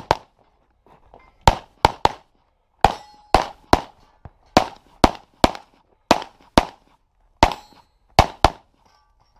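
Handgun shots fired in a string of about fifteen, many in quick pairs with short pauses between.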